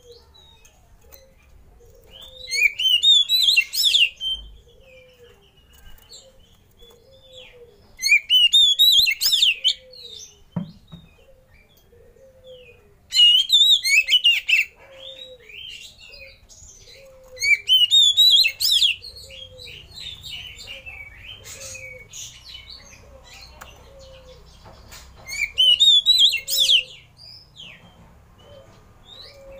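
Oriental magpie-robin (kacer) singing in five loud bursts of rich, varied whistled phrases, each about one and a half to two seconds long and several seconds apart. Underneath, a faint low note repeats about every second and a half.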